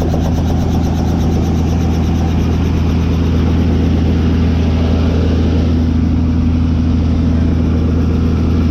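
Tour helicopter's engine and rotor running steadily: a loud, even drone with a fast flutter on top.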